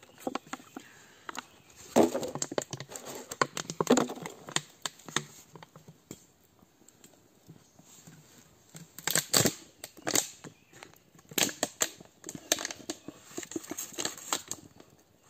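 A machete blade knocking and scraping against a wooden log as it cuts into it, in irregular strokes, the sharpest knocks about nine and ten seconds in.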